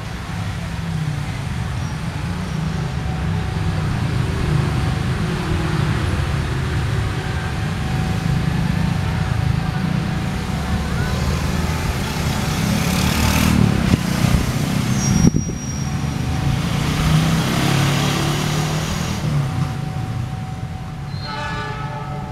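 Diesel locomotive hauling a rolling-stock transfer train, approaching slowly with a low engine rumble mixed with road traffic noise at the level crossing. A couple of sharp knocks come about two-thirds of the way through.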